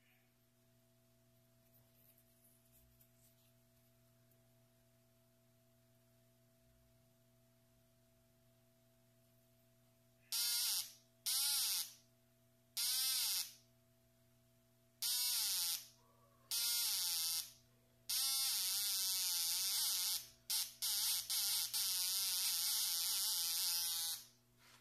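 Homemade pinpointer metal detector's buzzer sounding a harsh, high-pitched electronic tone as metal is brought near its probe coil. About ten seconds in it gives five short beeps, then longer tones of two seconds or so broken by brief gaps, stopping shortly before the end. Under it runs a faint steady hum.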